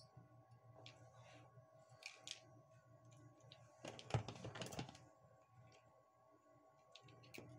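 Quiet small clicks and taps of hands handling a drill's plastic housing and small parts, with a louder flurry of rattling and rustling about four seconds in. A faint steady hum runs underneath.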